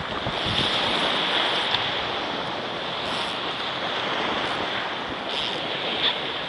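Small surf breaking and washing up a sandy beach in a steady rush, with wind on the microphone.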